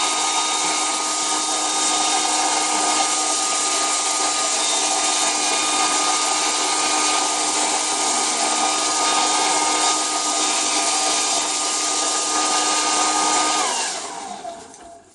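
Handheld hairdryer running steadily, a rush of air with a motor whine, heating the phone's back to soften leftover double-sided tape adhesive. It is switched off near the end and winds down.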